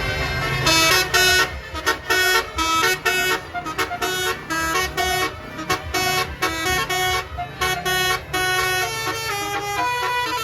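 Basuri telolet musical horn on a tour bus playing a quick melody of short pitched honks, the notes changing several times a second, over the bus engine's low steady running.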